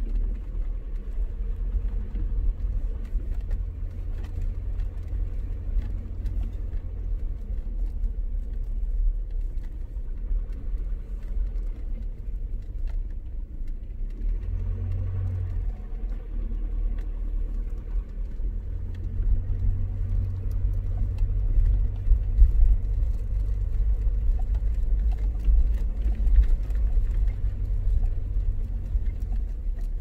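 A car driving, heard as a steady low rumble of engine and road noise that swells a little from about two-thirds of the way in.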